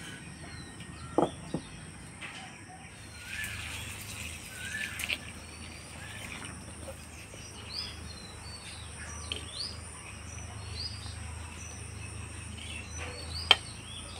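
Small birds chirping in short, repeated calls, with a few sharp knocks against an aluminium pot as eggs are put into its water; the loudest knock comes about a second before the end.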